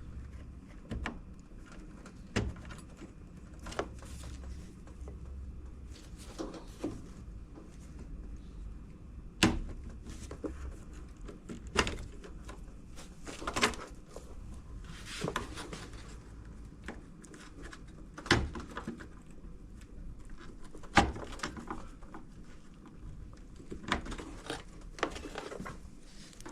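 Scattered clicks, taps and knocks of plastic and metal parts being handled while a washing machine is taken apart, its wiring plugs being unclipped, over a steady low hum.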